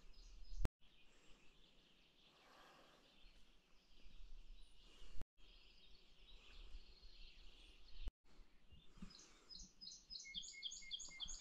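Faint outdoor ambience of songbirds chirping, broken by a few brief cuts. Near the end a nearer bird sings a quick run of repeated short notes.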